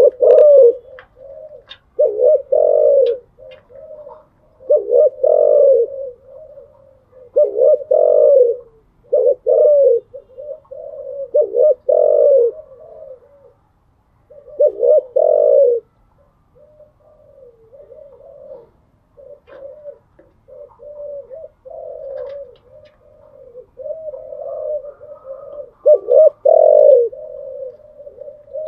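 Spotted doves cooing: loud, repeated deep coo phrases every couple of seconds, easing to softer coos in the middle and strengthening again near the end.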